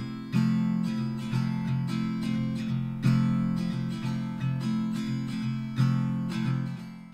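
Background music: an acoustic guitar strumming chords in a steady rhythm, fading down near the end.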